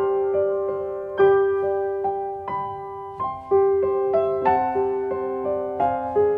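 Piano music: a slow melody of single struck notes over held chords, each note fading after it is played.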